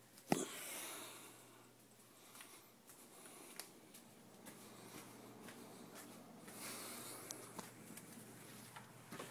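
Phone handling noise as it is carried: a sharp knock about a third of a second in, then soft rustling and scattered small clicks over a faint steady hum.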